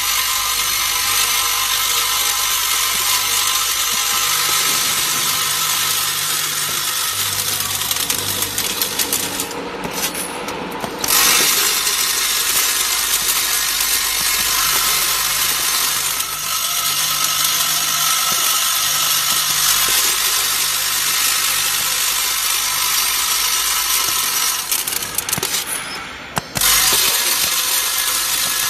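Steel screws rattling and clattering continuously on the vibrating feed trays of a screw-weighing packing machine, under a low hum. The rattle drops away briefly twice, about ten seconds in and near the end, and comes back each time with a louder burst.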